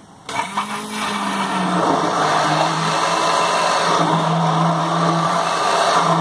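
Breville hand blender running in its beaker, puréeing tinned chopped tomatoes. It starts a moment in, its pitch drops slightly about a second and a half in, then it runs steadily.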